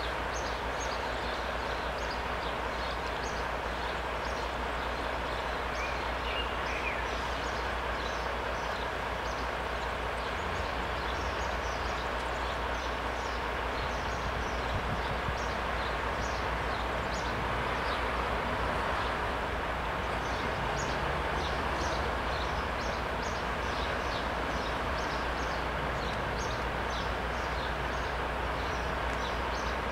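Steady outdoor traffic ambience of vehicles idling at a closed level crossing: a constant low rumble and hiss, with short, high chirps scattered throughout.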